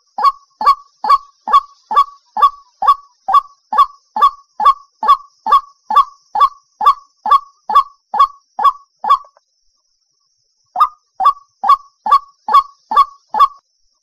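White-breasted waterhen giving its monotonous 'ruak ruak' call: short croaking notes repeated evenly at a little over two a second. The notes stop about nine seconds in, then start again after a pause of about a second and a half.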